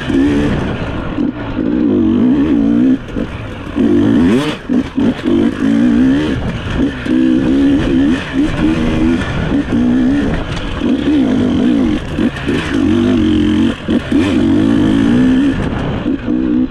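Enduro dirt bike engine revving up and down as it is ridden hard on a trail, the throttle rolling on and chopping off every second or two, with scattered knocks from the bike over the ground.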